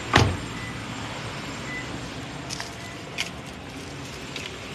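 A single dull thump just after the start, then a few light crinkles of plastic protective seat covers being brushed, over steady background noise.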